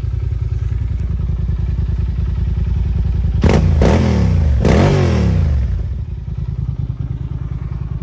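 Yamaha TDM900's parallel-twin engine idling through what sound like aftermarket pipes, blipped twice about three and a half seconds in, each rev rising then falling in pitch, before settling back to a steady idle.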